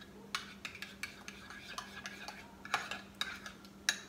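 Metal spoon stirring runny, lime-thinned sour cream in a small bowl, with irregular light clicks and taps as the spoon knocks the bowl's sides.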